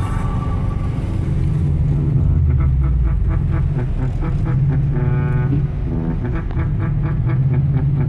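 A car engine running under background music.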